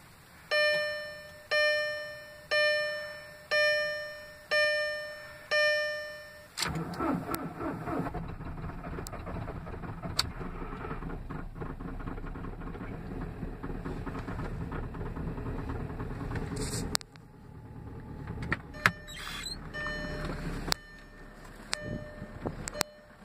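Dashboard warning chime dinging six times, about once a second, with the key on; then the 2005 VW Jetta TDI's 1.9-litre BEW Pumpe-Düse four-cylinder diesel starts about seven seconds in on a cold start at about 8 °F and settles into a steady idle.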